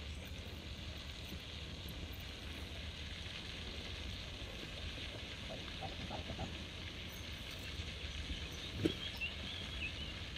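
Outdoor pond-side ambience: a steady low wind rumble on the microphone under a faint hiss, with a few short high chirps near the end and a single thump about nine seconds in.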